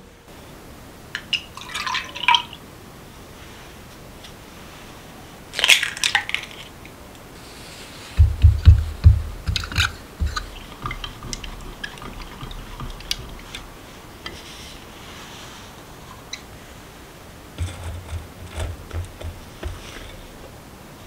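Kitchen mixing sounds from a glass measuring jug: liquid pouring and clinks, then a run of quick knocking strokes as egg and milk are beaten together. Near the end come a few soft thuds as flour is tipped into a metal sieve.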